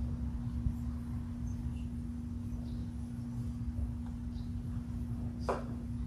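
A steady low hum over a low background rumble, with a few faint, short high chirps and a brief rustle about five and a half seconds in.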